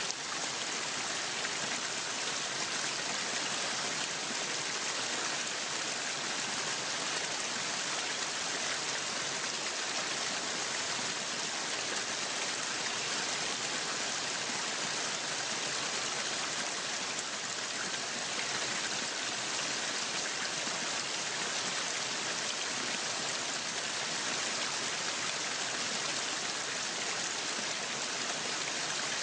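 Waterfall: water falling and rushing in a steady, unbroken hiss, strongest in the high range.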